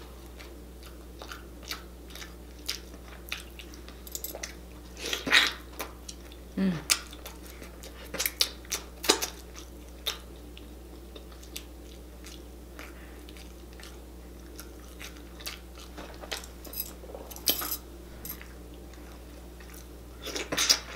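Close-up eating sounds of rotisserie chicken being eaten with the fingers: chewing, lip smacking and short wet mouth clicks, coming irregularly with a few louder snaps, over a faint steady hum.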